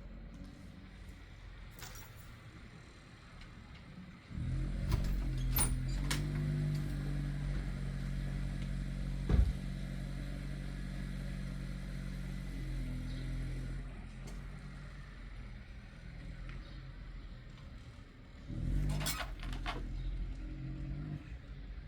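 Electric sewing machine running in two spells: a steady low motor hum starts about four seconds in and runs for about ten seconds, then starts again briefly near the end. A few sharp clicks come as it starts up.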